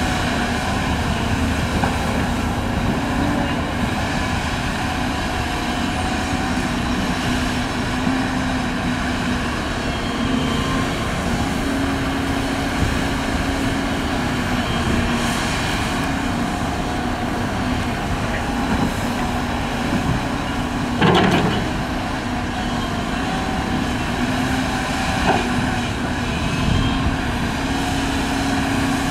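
Working excavator's heavy diesel engine running steadily under load, its pitch wavering slightly, with one sudden loud knock about two-thirds of the way through.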